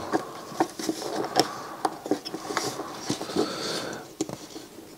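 Small clicks, taps and rubbing of plastic and metal parts as a drive motor and its belt are fitted by hand into a CD player's plastic tray-loading mechanism.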